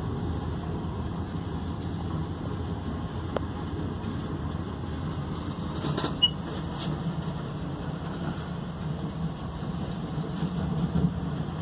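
Steady low rumble of heavy machinery running, with one sharp click about six seconds in.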